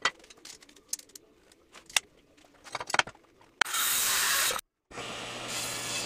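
Knocks and clicks of a wooden board being handled, then a table saw running with a loud steady rush that cuts off abruptly, followed after a short gap by the saw running again with a low hum.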